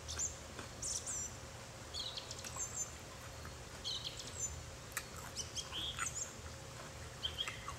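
Small birds chirping in short, scattered calls over a low steady hum, with a sharp click about five seconds in.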